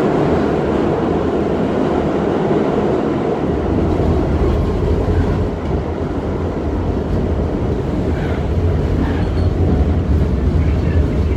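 New York City subway train running, heard from inside the car: a loud, steady rumble of wheels on track that grows deeper about three and a half seconds in.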